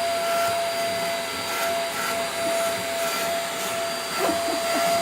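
Vacuum cleaner running steadily, a constant whine over its rushing noise, with a few brief wavering sounds about four seconds in.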